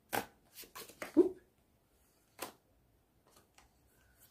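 A deck of oracle cards shuffled in the hands: a quick run of short card snaps and slaps in the first second and a half, the loudest about a second in, one more about two and a half seconds in, then a few faint ticks.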